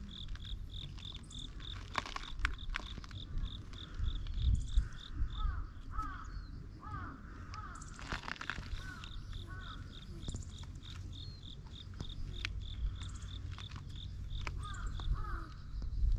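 An insect chirping outdoors, a high-pitched steady pulse of about four chirps a second that pauses briefly near the middle. Short bird calls come in a few times, over a low rumble and a few soft knocks.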